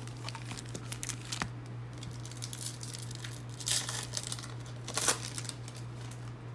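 A 1999 SP Authentic Football trading-card pack wrapper crinkling as it is torn open, with two louder bursts about three and a half and five seconds in.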